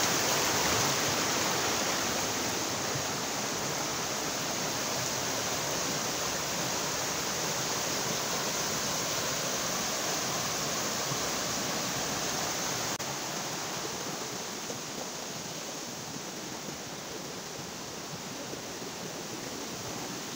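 Shallow mountain stream rushing and splashing over rocks: a steady hiss of running water that slowly grows fainter, with a small drop about two-thirds of the way through.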